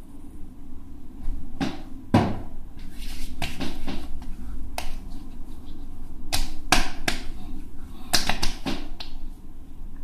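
Hands rubbing and stroking a freshly shaved face and neck close to the microphone, a series of about a dozen short brushing strokes that start about a second and a half in and stop near the end.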